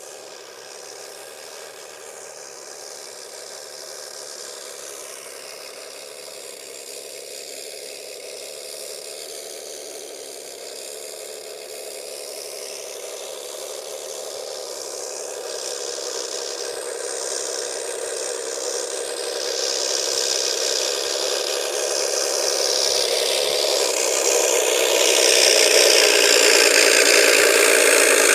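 Simulated piston-engine idle played from a Mr RC Sound unit's speaker in an electric R/C model plane, a steady rattling engine note that grows steadily louder.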